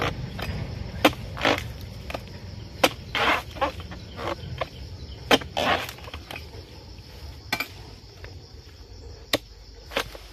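Long-handled harvesting chisel chopping into the crown of an oil palm around the fruit bunch: sharp strikes every second or two, several followed about half a second later by a longer crunching rustle of cut frond.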